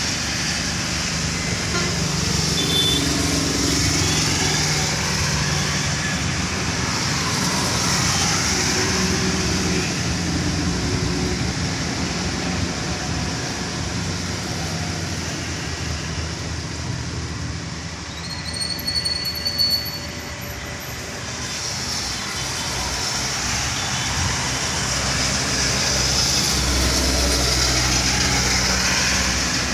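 Traffic passing on a rain-wet road: tyres hiss through the water, swelling as each vehicle goes by, with a truck's low engine rumble near the end. A brief high-pitched chirp sounds about two-thirds of the way in.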